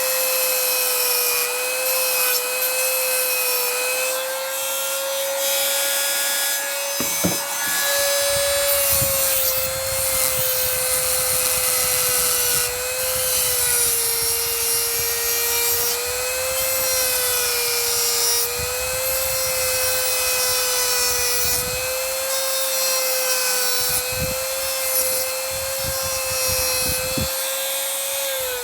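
Dremel-style rotary tool running steadily while grinding a hacksaw blade into a lock pick, a high grinding hiss over the motor's whine, its pitch wavering slightly as it is pressed into the metal. The motor begins to wind down at the very end.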